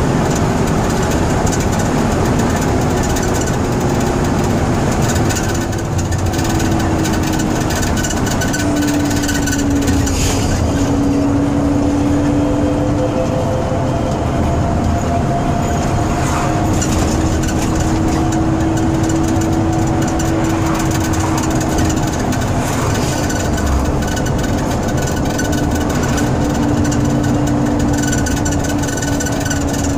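Ikarus 256.50 coach's Rába D10 six-cylinder diesel engine running while the bus drives along, heard from inside the bus, with a steady rumble and road noise. A whining tone over it wavers slowly up and down in pitch.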